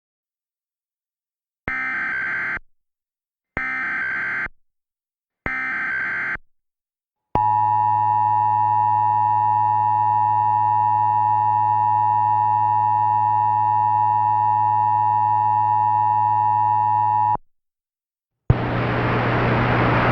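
Emergency Alert System tornado warning signal: three short buzzing SAME header data bursts about two seconds apart, then a steady attention tone held for about ten seconds that cuts off sharply. A steady hiss with a low hum starts near the end, ahead of the spoken message.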